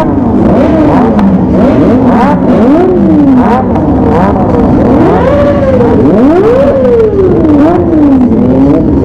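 Kawasaki ZX-25R's high-revving 250 cc inline-four engine revved again and again. Its pitch climbs to a high scream and falls back with each blip, about seven or eight times.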